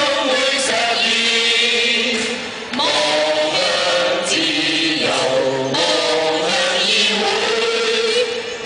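A group of people singing a song together in unison, the stage voices amplified through microphones and a loudspeaker. The singing breaks briefly just under three seconds in, then carries on.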